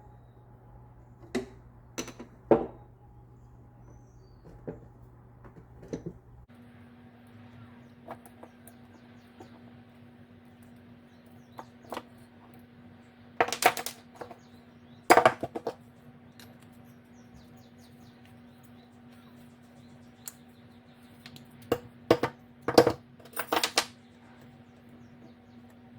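Scattered metallic clicks and clinks of hand tools and small bicycle parts being handled during repair work, with louder bunches of clinking near the middle and again near the end.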